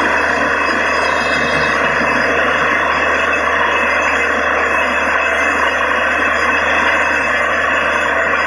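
Loud, steady rush of water and air blowing out of a freshly drilled borewell, over the constant drone of the truck-mounted drilling rig's engine.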